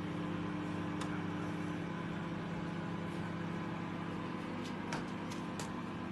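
Microwave oven running with a steady hum while cooking, with a few light clicks about a second in and near the end.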